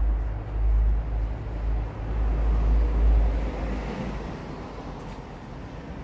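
Street traffic: a vehicle passes with a low rumble and tyre noise that swells and then fades away about four seconds in.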